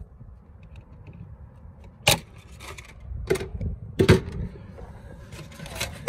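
Pliers and wiring being handled inside a rooftop HVAC unit's electrical compartment: a few sharp clicks and knocks, the loudest about two seconds in and again around four seconds, over a low steady rumble.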